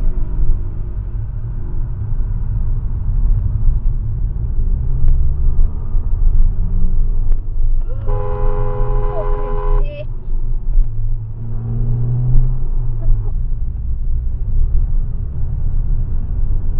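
Steady low road and engine rumble of a moving car heard from inside the cabin, with a car horn sounding once for about two seconds about eight seconds in.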